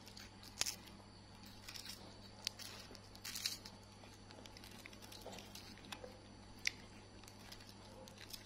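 Baby macaque biting and crunching chocolate wafer sticks: a scatter of short, crisp crackles at irregular moments over a faint steady hum.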